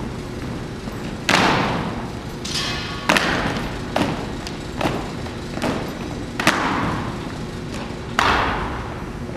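Drill team stomping in unison on a hardwood gym floor: several sharp, heavy thuds a second or so apart, each ringing out through the large hall.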